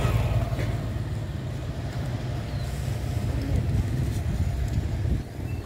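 Steady low rumble of motor-vehicle noise on a street, easing a little near the end.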